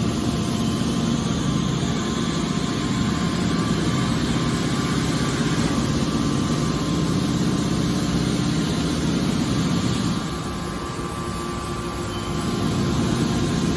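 Hydraulic metal baler running steadily, its power unit giving a continuous hum and low rumble that eases off briefly about ten seconds in.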